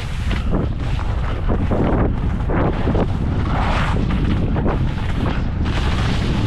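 Wind buffeting a camera microphone during a downhill ski run, a steady low rumble, with repeated surges of hiss as the skis carve and scrape through the snow in turns.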